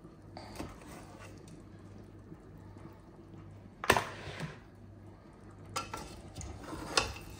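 A metal spoon knocking and scraping in a cooking pot of pepper soup, with one sharp clank about four seconds in and a few lighter knocks near the end, over a low steady hum.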